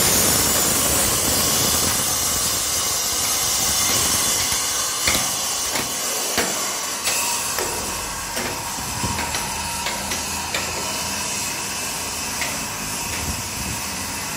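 Electric power tool cutting into a concrete block wall, most likely chasing channels for conduit or pipes: a loud, steady hissing grind that eases somewhat after about four seconds and carries on, with scattered knocks in the middle.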